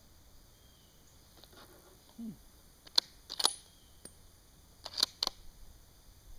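Metallic clicks and clacks of a .30-06 rifle's action being worked by hand: one sharp click, a quick double clack, then a close group of three clicks a couple of seconds later. A brief low sound falling in pitch comes just before them.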